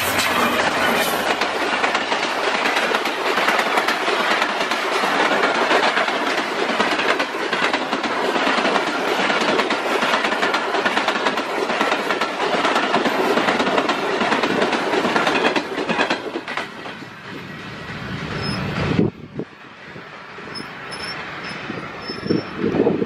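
A diesel passenger train passes close by at speed: the ZCU-30 locomotive, then a long string of coaches, wheels clattering over the rail joints. The noise thins out and then drops off sharply about nineteen seconds in as the last coach goes by.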